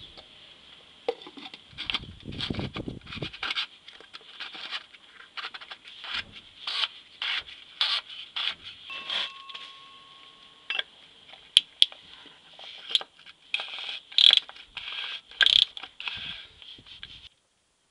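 Repeated scraping and rubbing strokes as a Volvo S40/V40's oil filter housing is screwed into its seat by hand and then tightened with a socket wrench, with two sharp clicks about two-thirds of the way through.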